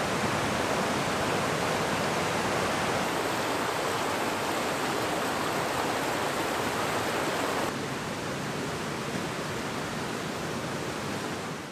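A fast-flowing stream rushing and splashing over mossy boulders, a steady even rush of water. It drops a little quieter about two-thirds of the way through.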